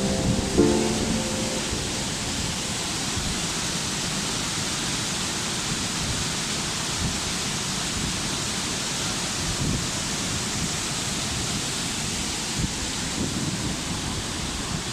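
Waterfall: a steady rush of falling water. The tail of background music fades out within the first second or two.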